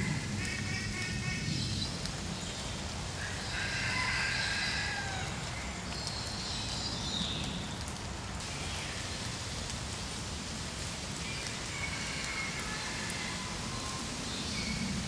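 Steady rain falling on pooled water and the wet woodland floor, with several drawn-out bird calls rising above it at intervals.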